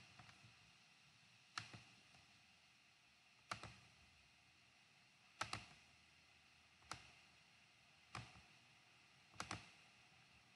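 Computer mouse clicking: about seven sharp single clicks a second or two apart, some in quick pairs, over faint steady hiss.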